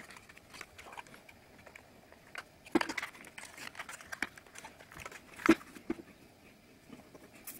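Clicks and taps of stiff die-cut paper-board puzzle pieces being handled and slotted together, with two sharper knocks, about three seconds in and again about five and a half seconds in.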